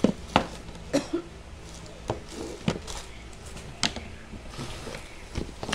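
Plastic delivery packaging being handled: a series of short, sharp crinkles and taps, about one a second.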